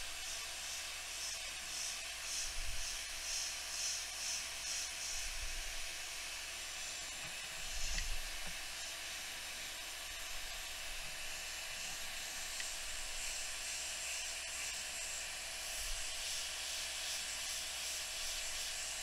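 Steady hiss of moving air from bench repair equipment. A scratchy high pulsing about twice a second runs from about a second in to five seconds and again in the last few seconds, with a few soft low bumps.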